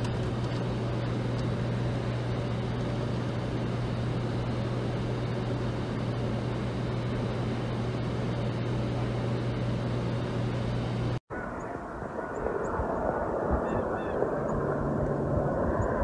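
Strong blizzard wind blowing across the microphone, a steady rushing noise with a constant low hum underneath. After a brief break about 11 seconds in, a duller, lower wind noise follows.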